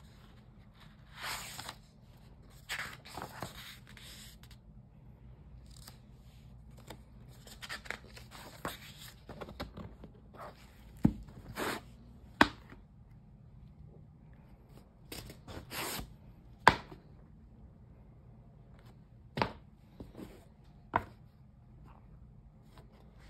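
Sketchbook pages being turned and handled: several short papery swishes, then a few sharp taps and knocks as the hardcover book is shut and moved.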